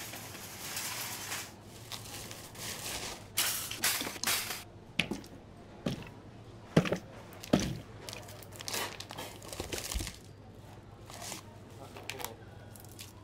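Handling noises while shopping: plastic packaging crinkling and goods being picked up and set down, a string of knocks and rustles over a low steady hum. The two loudest thuds come about halfway through.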